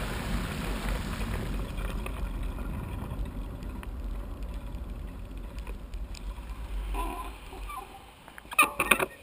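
Bicycle riding out of shallow floodwater onto a wet tarmac path: a steady wash of tyres through water and low rumble, fading about two-thirds of the way through, then a few sharp clatters just before the end.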